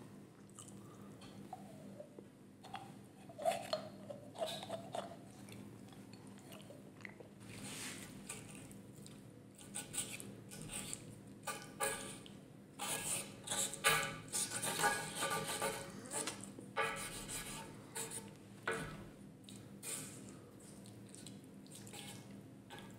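Mayonnaise squirted from a plastic squeeze bottle, with a short rising squeak a few seconds in. Then a wooden spoon scrapes, presses and cuts through ribeye steak and mayonnaise on a stone serving board, giving irregular clicks, scrapes and wet squelches that are busiest in the middle.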